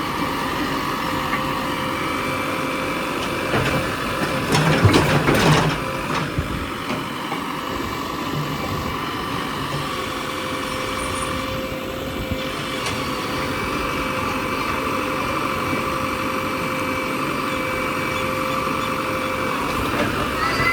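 JCB 3DX backhoe loader's diesel engine running steadily, with a louder burst of knocks about four to six seconds in.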